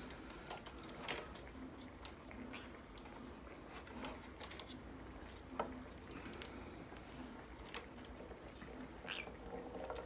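Faint, irregular taps and scrapes of green-cheeked conures' feet and claws moving about on a wooden tabletop soccer board.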